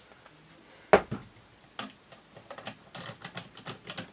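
Wooden forend and metal parts of a shotgun being fitted back together by hand: one sharp knock about a second in, then a run of small clicks and taps.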